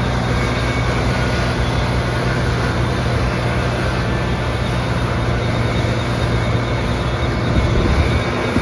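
New Holland CR11 rotary combine harvester running steadily while harvesting wheat: a constant low hum under a broad mechanical rush.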